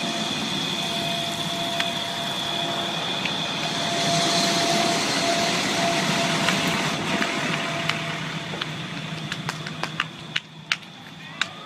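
Vehicle engines running steadily under a steady high-pitched tone. Near the end the rumble drops away and a run of sharp, irregular clicks follows.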